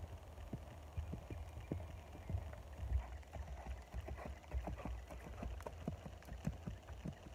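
Hoofbeats of a ridden grey horse on dry, grassy ground: irregular dull thuds over a low rumble.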